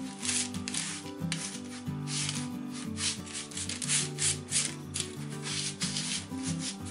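Silicone spatula pushing a honey-coated oat and nut granola mixture across parchment paper on a baking sheet: repeated rustling, scraping strokes, about two a second. Background music plays underneath.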